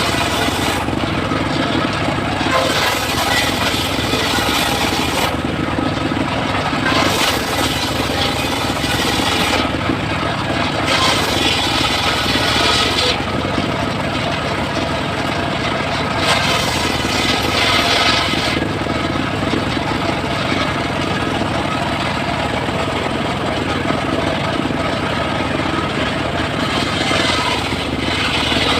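Circular saw running steadily while slicing mahogany, its blade cutting in repeated passes of about two to three seconds each, each cut adding a bright, hissing rasp over the steady hum of the motor.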